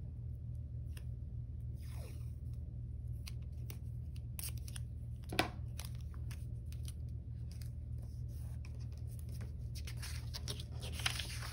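Washi tape being pulled off its roll, separated and laid onto a sheet of paper: scattered light clicks and rustles, with one sharper click about five seconds in.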